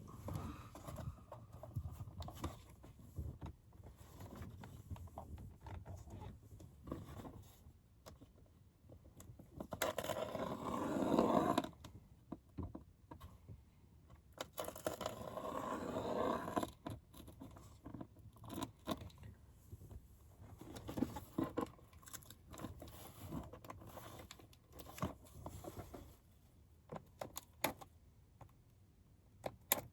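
Hands opening a package: scattered clicks, knocks and scraping, with two longer stretches of tearing and rustling about ten and fifteen seconds in.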